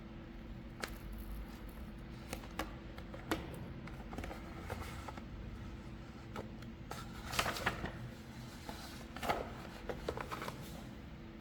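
Grip tape and its peeled-off backing paper being handled: scattered rustles, crinkles and light taps, with a couple of louder crackly rustles about seven and nine seconds in.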